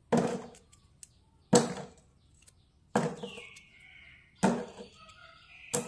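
Five sharp knocks, evenly spaced about a second and a half apart, each dying away quickly.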